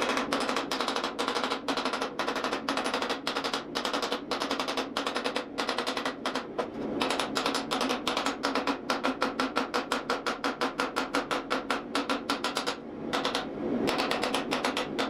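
Power hammer drawing out a steel bar, striking in rapid even blows about five a second over a steady hum. The blows stop for about a second near the end, then start again.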